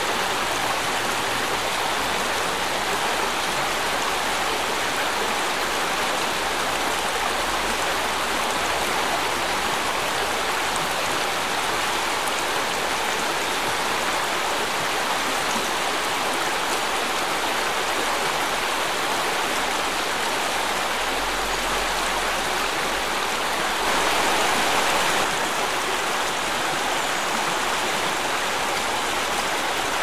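Shallow rocky river rushing over stones and around mossy boulders: a steady, even rush of water that swells a little for a moment late on.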